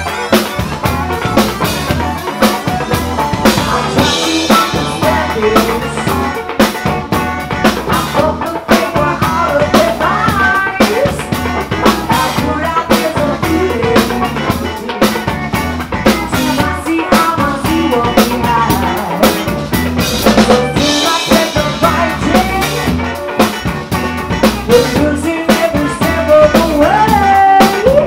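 Live band playing: a drum kit beating steadily under electric guitar.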